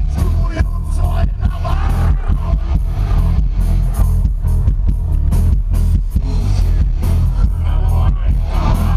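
Live rock band playing loud through the festival PA, with dense drum hits and a heavy bass that dominates the mix, and a voice singing over it.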